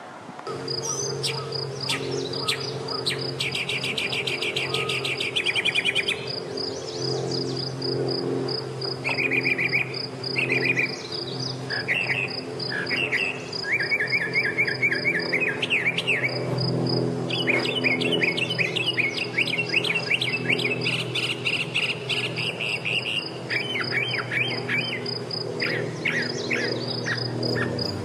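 Mockingbird singing: a string of varied phrases, each built from one note or figure repeated several times before it switches to the next. A steady high pulsing chirp runs behind the song.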